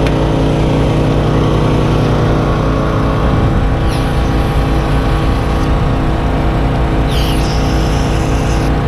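Aerosol brake cleaner sprayed onto a brake caliper bracket in two short hissing bursts, one about four seconds in and another about seven seconds in, each under two seconds long. A steady engine drone runs underneath.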